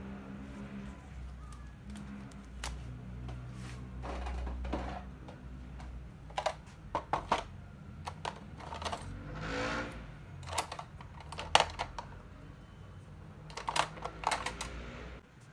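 Pens and markers clicking and rattling against each other and the sides of a clear plastic pen cup as they are picked through, in short clusters of sharp clicks with a few light taps on the desk.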